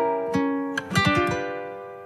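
Plucked acoustic strings playing a few notes and a chord about a second in, which rings on and fades away.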